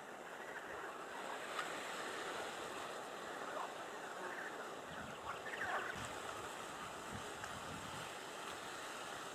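Small wind-driven waves lapping at the water's edge, with a steady wash of wind and a few soft splashes between about five and seven seconds in.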